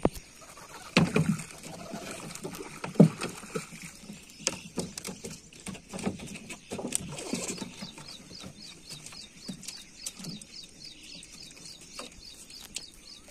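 Scattered knocks and taps on a wooden rowboat as a hook longline is hauled in and a caught fish is landed and handled on the boards. The loudest knocks come about one and three seconds in.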